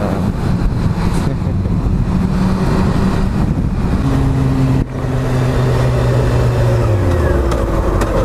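Honda CBR600 F4i's inline-four engine running under way, with wind rushing over the microphone. The engine note holds steady, then falls in pitch near the end as the bike slows.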